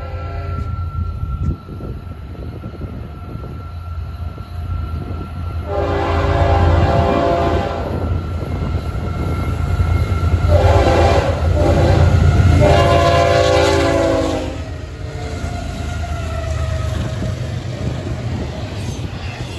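Florida East Coast Railway GE ES44C4 freight locomotive's horn sounding three long blasts, the last two close together, over the low rumble of the approaching train. Near the end the horn stops and the freight cars rumble past.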